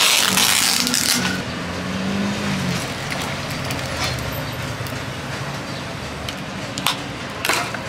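Plastic cup of ice rattling as its film lid is peeled off, loudest in the first second. Then a drink is poured from a pouch over the ice cubes with a steady crackling pour, over a low traffic hum, with a few small clicks near the end.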